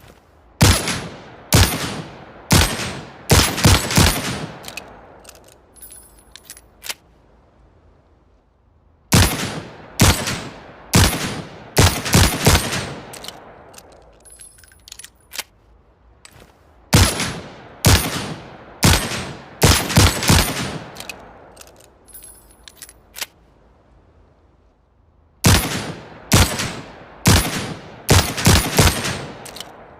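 Manurhin MR-73 revolver firing strings of about six shots, each shot sharp with a ringing tail. Short bursts of light clicks fill the gaps between strings, and the cycle repeats about every eight seconds.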